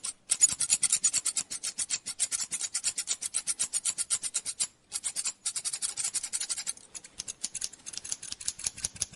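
Barber's scissors snipping hair in a rapid, even rhythm of about eight crisp snips a second. There is a short break near the middle, and the snips grow softer for the last couple of seconds.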